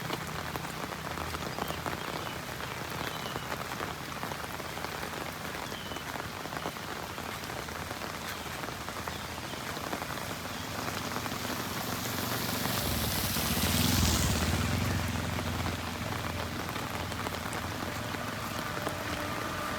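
Heavy monsoon rain falling steadily on a road and foliage. About two-thirds of the way through, a vehicle passes on the wet road: a low rumble and a swell of tyre spray that rises, peaks and fades over a few seconds.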